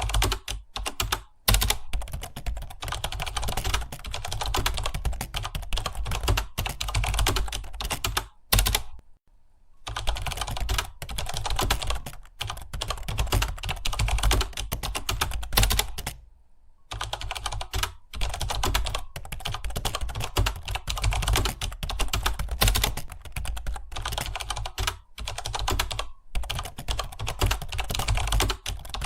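Fast, continuous typing on a computer keyboard, a dense run of key clicks that breaks off briefly about nine seconds in and again about sixteen seconds in.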